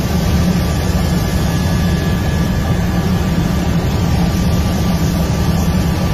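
Helicopter cabin noise: the engine and rotor running steadily in flight, a loud, even low rumble with a faint steady whine above it.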